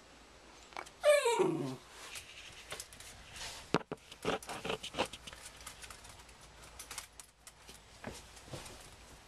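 A Jack Russell terrier gives one loud whine about a second in that falls steeply in pitch, a dog waiting to be fed. Short quieter clicks and scuffles follow.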